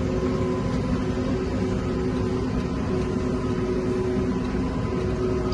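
Tractor engine running steadily, a continuous hum with a low rumble and a few held tones that do not change.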